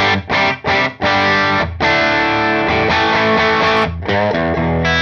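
Yamaha Pacifica electric guitar played through a Gokko Salem Boost pedal that pushes the front of the amp into overdrive. Three short chord stabs in the first second, then long sustained chords.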